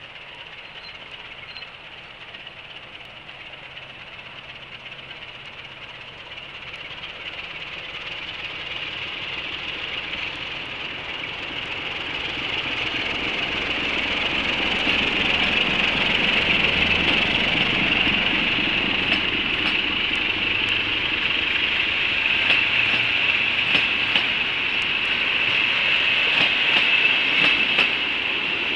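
A CFR diesel-hauled passenger train approaches and passes close by, growing steadily louder over the first half. A steady high-pitched tone runs throughout. Once the coaches are rolling past, their wheels click repeatedly over the rail joints.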